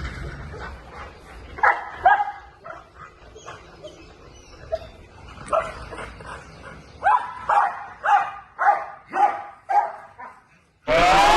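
Dog barking in short single barks: a couple about two seconds in, then a quicker run of about six near the end.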